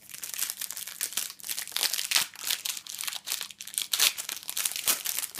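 A crinkly foil trading-card packet being torn open and crumpled in the hands, a continuous crackling rustle.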